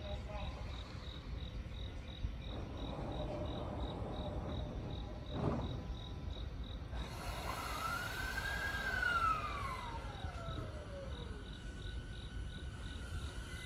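Insects chirping in a steady pulse of about three to four chirps a second over a low steady rumble. From about halfway a whine rises briefly and then glides slowly down over several seconds.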